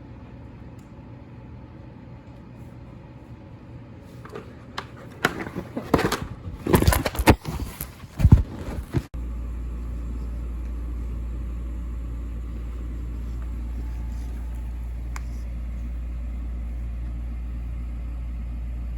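A flurry of loud knocks and rustling, then an abrupt change to a steady low rumble, like road noise inside a moving car.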